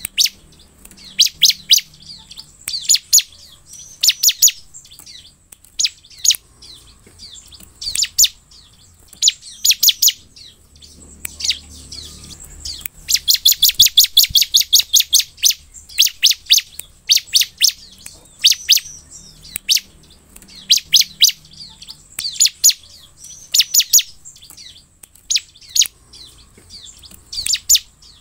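Bar-winged prinia (ciblek) calling: short clusters of sharp, high chirps, repeated with brief gaps, and a loud rapid trill of about ten notes a second about halfway through.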